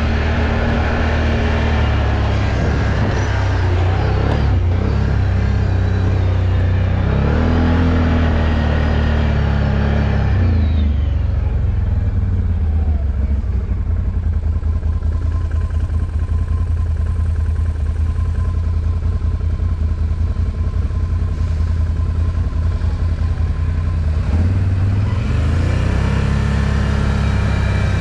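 Off-road vehicle engine running hard on a mud trail, revs climbing and falling. It drops to a lower, steadier note about ten seconds in and picks up again near the end.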